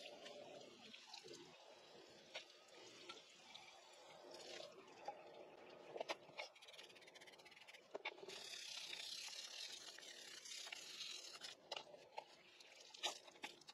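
Faint water hiss from a garden hose rinsing degreaser off a car's rear differential housing, with water dripping and splattering onto the floor. The spray hiss is stronger from about eight to eleven seconds in.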